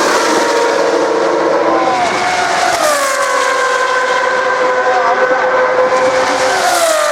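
Racing single-seater's engine running at high revs, its note falling in pitch about two to three seconds in and shifting again near the end, as the car passes or changes gear.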